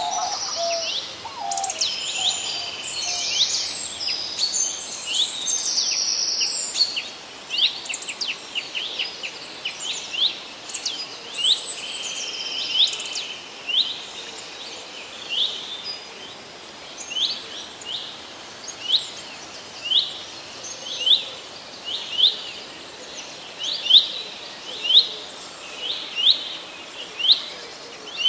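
Birds chirping: a busy mix of calls in the first half, then a single short rising call repeated about once a second.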